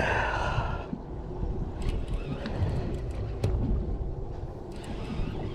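Wind rumbling on the microphone over the steady noise of a boat at sea, with a few faint clicks as the line is reeled in. There is a short breathy rush in the first second.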